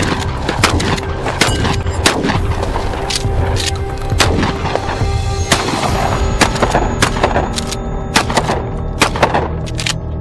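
Pump-action shotgun fired shot after shot at range targets, roughly one to two shots a second, over background music.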